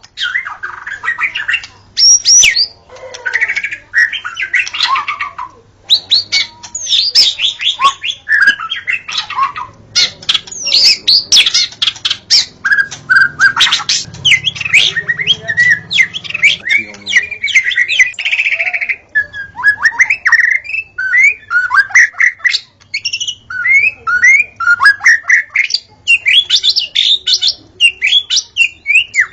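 White-rumped shama in full song: a long, unbroken stream of quick, varied whistles, sweeps and trills with only brief pauses.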